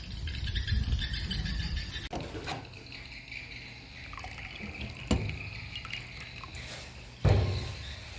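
Liquid being poured or run, with a few short knocks and one louder thump about seven seconds in.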